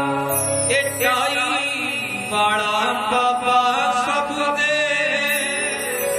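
A harmonium playing a devotional tune over held low notes, with a man's voice singing in a chant-like, wavering line over it.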